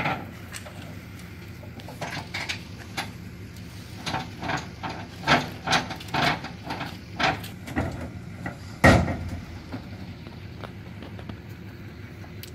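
A rake scraping and dragging over gravel and dirt in irregular strokes, with a vehicle engine idling low underneath. A single heavy thump comes about nine seconds in.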